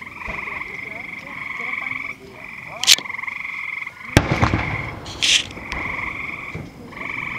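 A chorus of frogs trilling in steady pulsing calls a second or two long, with distant fireworks going off: a sharp crack about three seconds in, a louder boom with a rumbling tail about a second later, and another crack soon after.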